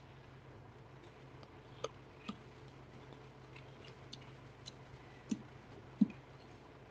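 Faint scattered ticks and a few soft knocks, the loudest near the end, from hand tools working a concrete curb, heard over the steady low hum of a security camera's microphone.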